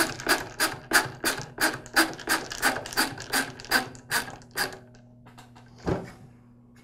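Ratcheting screwdriver driving a screw into the saw, clicking evenly about three times a second and stopping after about four and a half seconds. A single knock follows near the end.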